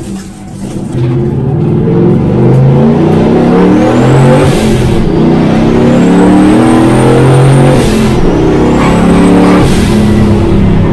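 V8 engine of a Mitsubishi Space Wagon van accelerating hard under load, heard from inside the cabin, its pitch climbing with a thin high whistle. The sound breaks off briefly about five and eight seconds in, between gears, then climbs again. This is a logged pull for engine mapping.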